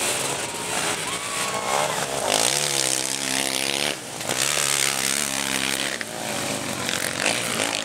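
Sidecarcross outfits' engines revving hard, the pitch climbing and dropping as they accelerate and change gear. The sound breaks off and picks up again about four seconds in and again near six.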